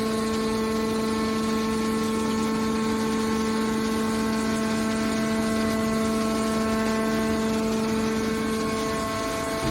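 Hydraulic scrap metal baler's power unit running with a steady pitched hum that holds one unchanging note.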